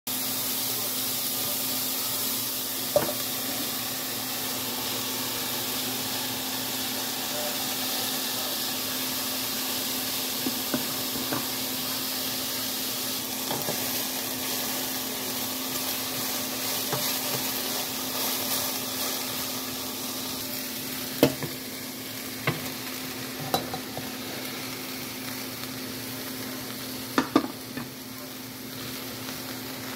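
Diced turnip, onion, carrot and celery sizzling in oil in a stainless steel pot, stirred with a wooden spatula, with now and then a sharp knock of the spatula against the pot. The sizzle gets a little quieter in the second half. A steady low hum runs underneath.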